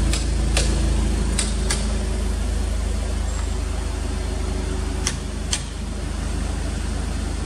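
Mitsubishi Lancer Evolution Wagon GT's MIVEC turbo four-cylinder idling steadily, heard at the exhaust. A few sharp clicks sound over it, a couple near the start and two more about five seconds in.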